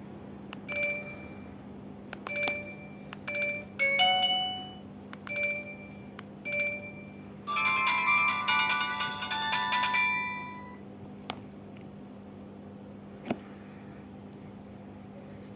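LG A271 mobile phone playing one of its built-in ringtones through its small speaker: a string of short electronic beeps about a second apart, then a quicker, busier run of notes that fades out a few seconds later. Two sharp clicks follow near the end.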